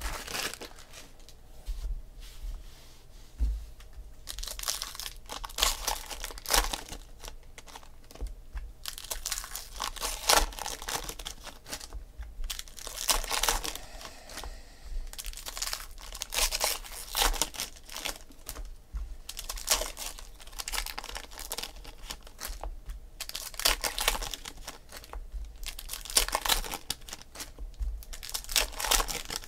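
Foil baseball card packs being torn open and crinkled by hand, in repeated short bursts of tearing and crinkling.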